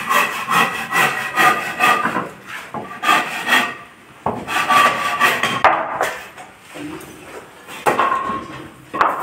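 Handsaw cutting a wooden plank in quick back-and-forth strokes, about two or three a second, pausing briefly a few times.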